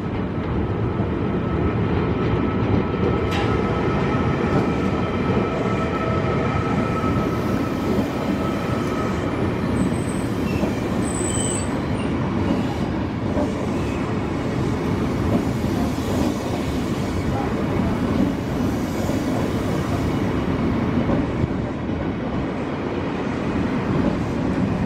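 Tokyu 8500-series electric commuter train running past close by, a steady rumble of wheels and motors that swells in over the first couple of seconds. A thin steady whine runs through the first third, and two brief high squeals come about ten and eleven seconds in.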